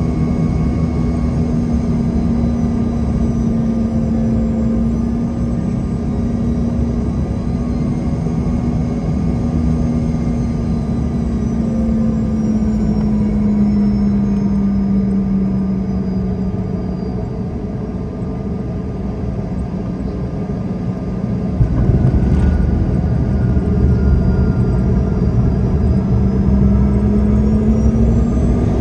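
Cabin noise of a CRJ200's rear-mounted turbofan engines on final approach, a steady hum whose tone sinks as power comes back. About three-quarters of the way through the main wheels touch down with a thump, and the deep rumble of the roll-out jumps up. Near the end the engine tone rises again as the engines spool up for reverse thrust.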